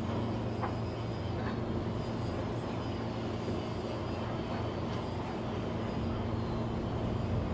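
Steady low mechanical drone of heavy machinery at a ship repair yard, holding one even pitch, with a couple of faint clicks about a second in.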